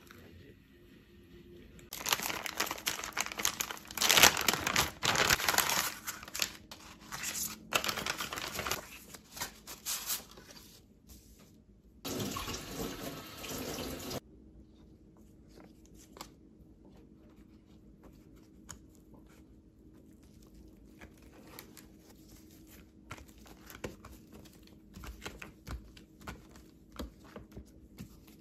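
Kitchen prep noise for rice paper: several seconds of uneven splashing and crinkling, then a steady run of tap water for about two seconds. After that come quiet soft taps and rustles as wet rice paper sheets are pressed together on a wooden cutting board.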